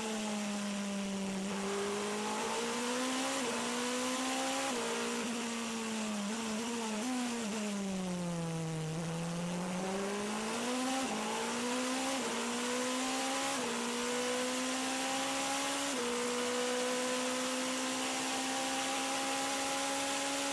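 Onboard sound of the Toyota TS040 Hybrid LMP1 race car's V8 engine at racing speed. The pitch sinks for a few seconds as the car slows for a corner, then climbs back through a run of quick upshifts, each a sudden drop in pitch, and runs nearly steady toward the end.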